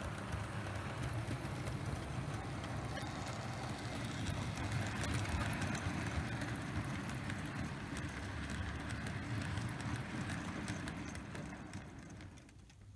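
00 gauge model freight train running past on the layout: a steady rumble of motor and wheels on the track with light, even ticking of about four a second, fading away near the end as the train moves off.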